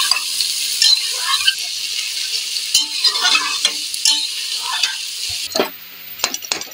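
Sliced bitter gourd sizzling as it fries in hot mustard oil, stirred with a steel spoon that scrapes and clinks against the steel pot. Near the end the sizzle gives way to sharper clinks and scrapes of a ladle in a pan of frying minced meat.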